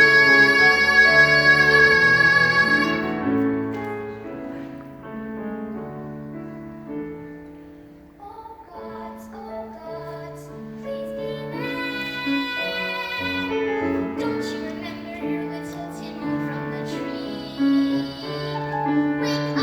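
A female voice holds a long sung note over piano, cutting off about three seconds in; the piano accompaniment then carries on more quietly, with short sung phrases coming back later.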